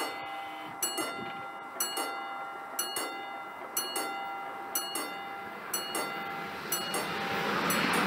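A bell struck about once a second, each strike ringing on. Over the last second or two the running noise of an approaching train rises beneath it.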